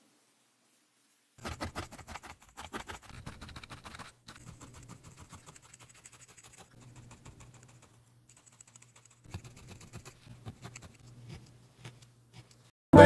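Felting needle stabbing into wool on a foam pad: rapid, repeated scratchy pokes in several runs with short breaks. A loud burst of music cuts in near the end.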